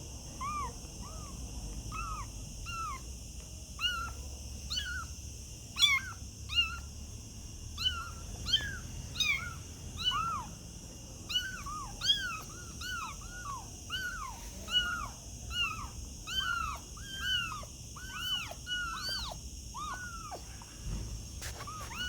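Kittens mewing: a long run of short, high calls that rise and fall in pitch, about two a second, some overlapping.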